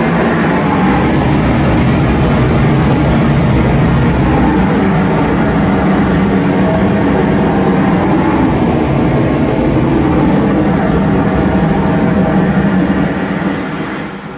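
Heavy machinery running loudly and steadily, with a constant low hum, dying away near the end.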